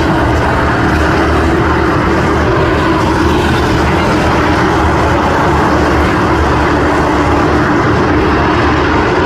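A pack of race cars lapping a short oval track, their engines droning together steadily and loudly as they pass close by.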